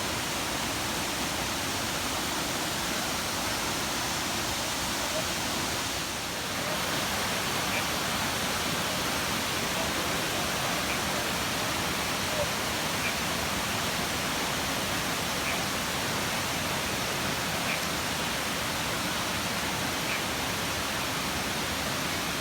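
Waterfall: steady rushing of falling water, dipping briefly about six seconds in.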